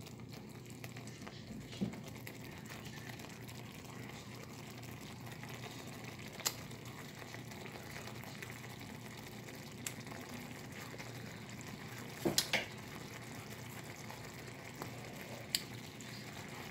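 Cream sauce bubbling at a simmer in a cast-iron skillet as it reduces, a faint steady sound. A few soft clicks are scattered through it, two close together about twelve seconds in.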